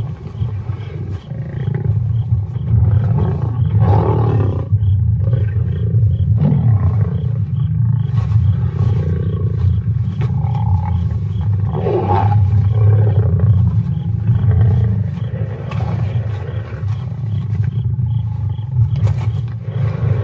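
Lions growling and snarling over a kill: a deep continuous growl, with sharper, louder snarls about 4, 6 and 12 seconds in.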